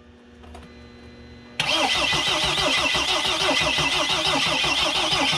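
Mercedes Sprinter diesel engine being cranked by its starter motor, an even rhythmic churning with a starter whine that cuts in sharply about a second and a half in, after a faint steady hum. The engine turns over without catching: the system is still full of air after a fuel pump replacement, and the new pump's electrical connector is unplugged.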